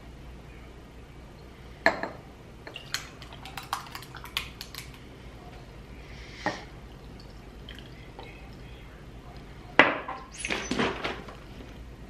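Ice cubes clinking and cracking in a glass as cold-brew coffee concentrate is poured over them, with glasses and a glass bottle knocked and set down on the counter. The sound is a scatter of sharp clinks and knocks, with a run of small clicks about two to five seconds in and the loudest knocks near the end.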